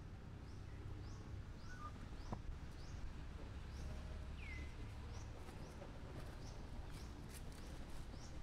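Outdoor ambience: a short, high chirp repeating about twice a second over a low rumble, with a single falling call about halfway through.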